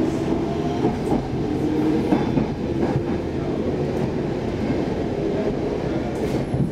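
Stockholm Metro C14 train running, heard from inside the car: a steady rumble of wheels on rail with a few sharp clicks over the track.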